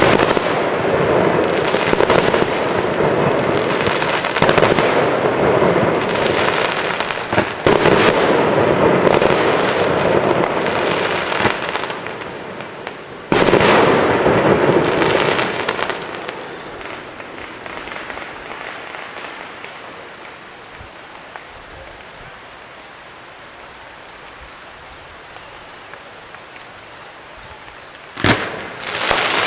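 Fireworks display: shells bursting one after another for the first twelve seconds or so, a sudden loud burst about thirteen seconds in that dies away, then a quieter stretch before another sharp bang near the end.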